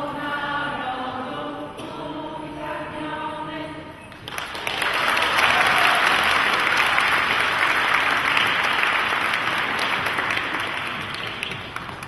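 A children's choir singing, the song ending about four seconds in. Audience applause then breaks out and carries on, easing off near the end.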